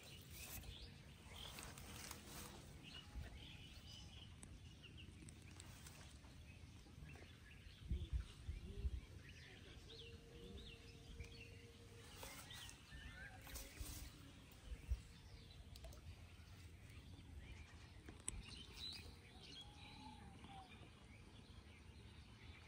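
Quiet rural outdoor ambience with scattered faint bird chirps, and a few soft low thumps about eight and fifteen seconds in.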